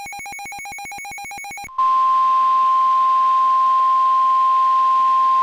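A buzzy electronic alert tone pulsing about ten times a second stops, and about two seconds in the NOAA Weather Radio 1050 Hz warning alarm tone starts: one loud, steady, high beep that marks the start of a new warning broadcast.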